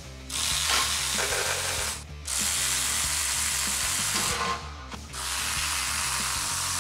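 Cordless electric ratchets running on the intake manifold bolts of a small-block Chevy 350, loosening them for removal. They run in three stretches of about two seconds each, with short breaks between.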